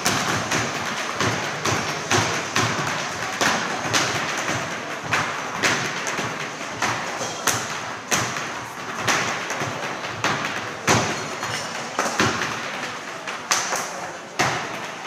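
A continuous run of rapid percussive taps and thumps, with heavier strikes standing out at irregular moments, roughly one or two a second.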